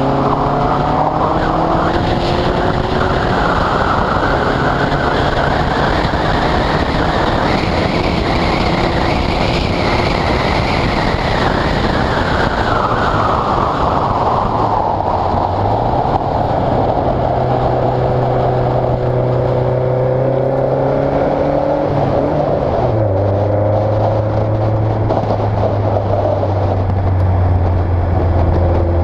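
Westfield sports car engine running at speed on a wet track, recorded onboard, with the hiss of wind and tyre spray on the wet surface swelling and then fading. The engine note shifts pitch a couple of times, with a sharp drop about three quarters of the way in.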